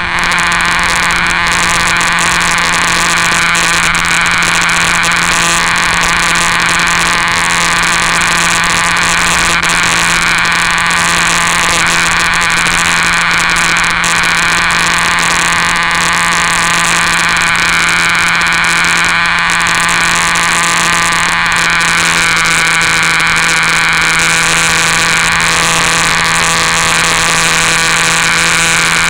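Electric motor and spinning propeller of a Flyzone Cessna 182 RC model plane in flight, a steady hum with a higher whine that rises and falls slightly now and then, heard from a camera on the plane with air rushing past.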